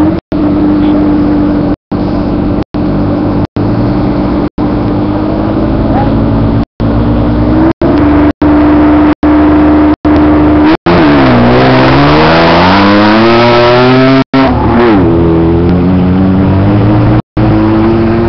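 Offroad race car's engine held at steady, raised revs at the start line, then about eleven seconds in accelerating hard away, its pitch climbing, dropping at a gear change a few seconds later and climbing again. The sound cuts out completely for a moment about once a second.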